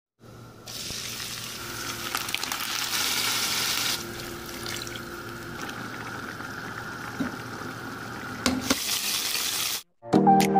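Chopped onion and garlic sizzling in hot oil in a frying pan: a steady frying hiss, louder for a couple of seconds after the onion goes in, then settling, with a few light clicks.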